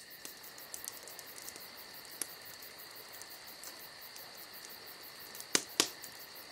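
Faint, steady high-pitched insect chirring with a fast, even pulsing, broken near the end by two sharp clicks a quarter second apart.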